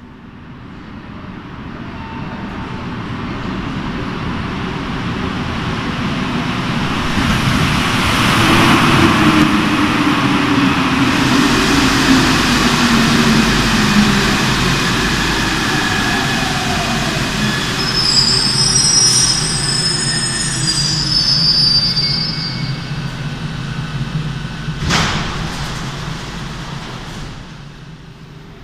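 A rubber-tyred Paris Métro Line 14 train pulls into the station, growing louder as it comes in, and brakes with its whine falling in pitch. High squeals follow as it comes to a halt, and there is a single sharp knock a few seconds before the end.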